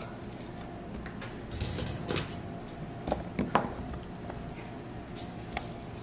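Raw sweet potato slices being set by hand onto a heaped ceramic casserole dish: a few soft knocks and taps of firm slices against each other and the dish, the clearest about three and a half seconds in and near the end.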